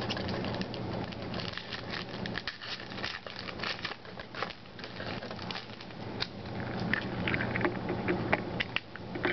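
Stiff 2008 Upper Deck Icons trading cards being slid and shuffled against one another in the hands: a quick run of light clicks and rustles, over a steady low hum.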